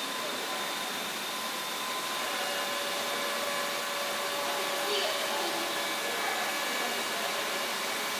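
Steady hiss of steam escaping around the pistons of the River Don Engine, a 1905 Davy Brothers three-cylinder reversing steam engine, as it stands with steam up just before it starts to turn, with a few faint whistling tones over it.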